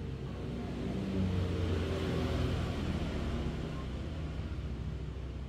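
An engine running with a steady low rumble, growing louder about a second in and easing off again after about three seconds.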